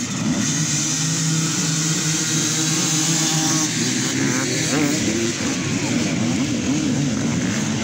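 Several off-road enduro motorcycle engines revving at once, their pitches rising and falling over one another.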